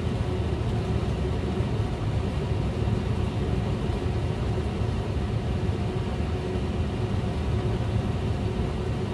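A steady low hum and rumble of running kitchen equipment, with faint steady tones above it and no change in level.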